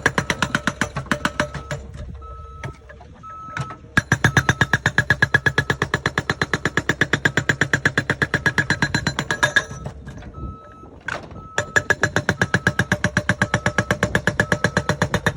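Volvo BL71 backhoe loader's diesel engine knocking in a fast, even rhythm that drops away twice and picks up again, with a short electronic warning beep repeating at a steady pace.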